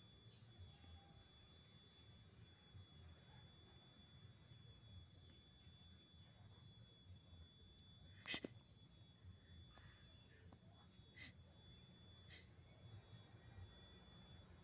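Near silence with a faint, steady high-pitched electronic whine, broken by one sharp click about eight seconds in and a couple of fainter ticks a few seconds later.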